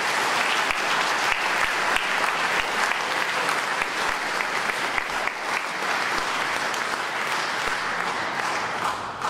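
Large audience applauding, a dense steady clapping that begins to fade near the end.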